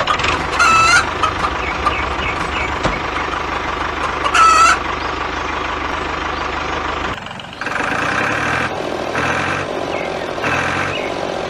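A steady low motor hum with two short warbling calls over it; about seven seconds in it breaks off, and regularly repeated electronic beeps like a reversing alarm follow.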